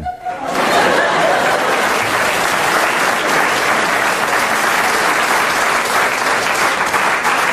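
Audience applause: many people clapping together, swelling in just after the start and then holding steady and dense.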